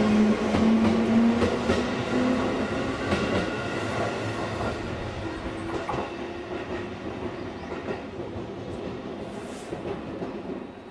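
Electric commuter train running past on the platform track, its wheels clicking over the rail joints, with a low whine stepping up in pitch at first. The sound fades steadily as the train draws away.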